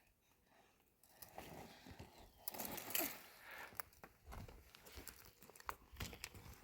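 Faint irregular rustling and crunching with scattered sharp clicks.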